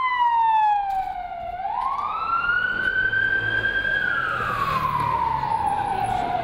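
Ambulance siren wailing: its pitch falls, climbs to a high note held for a couple of seconds, falls slowly again and starts to climb near the end.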